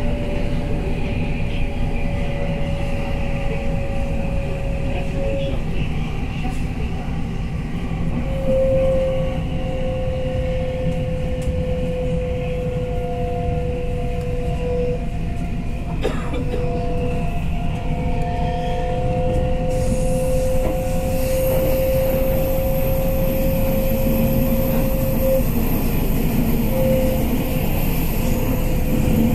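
Delhi Metro train running at speed, heard from inside the coach: a steady low rumble of wheels on rail, with a thin whine that drifts slightly in pitch. A faint high whistle joins about two-thirds of the way through.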